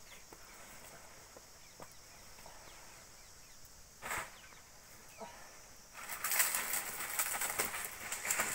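Faint background for several seconds, with one brief rustle about four seconds in. About six seconds in, a dense, crackling rustle starts suddenly and stays loud.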